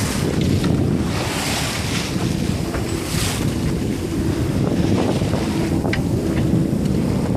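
Wind buffeting the microphone over water rushing and splashing along the hull of a small sailboat under way, with two swells of spray hiss, about one and a half and three seconds in.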